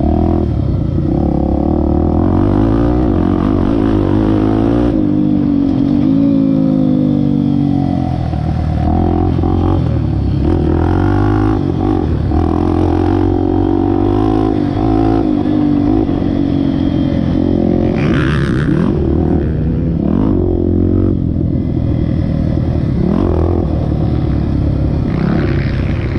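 Honda Tornado 250 single-cylinder four-stroke enduro motorcycle being ridden, its engine pitch rising and falling again and again as the rider accelerates, shifts and backs off.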